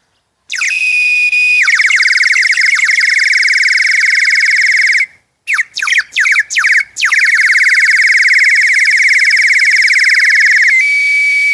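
Plastic water-filled bird whistle blown in long breaths, warbling in a rapid trill like birdsong. It starts as a steady whistle, trills for a few seconds, gives a few short chirps after a brief pause about five seconds in, trills again, and settles into a steady whistle near the end.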